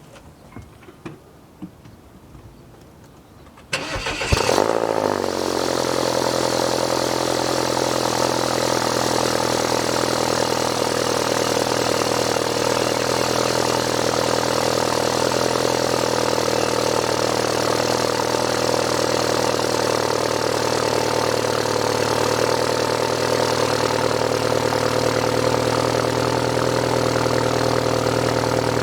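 BMW F30 cold start through an aftermarket single-exit exhaust with a Mega Racing universal muffler. After a few faint clicks, the engine cranks and catches about four seconds in with a brief rev flare, then settles into a steady, fast cold idle.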